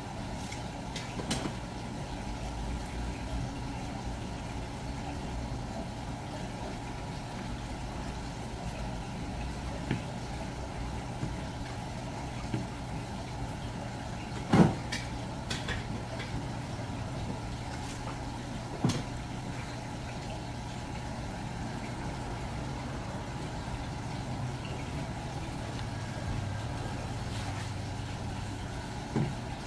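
A steady low machine hum, with a few sharp clicks and knocks now and then; the loudest knock comes about halfway through.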